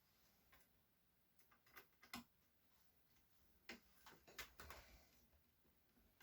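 Faint, scattered clicks and light taps of small laptop parts and screws being handled during reassembly, with a busier run of clicks around four to five seconds in.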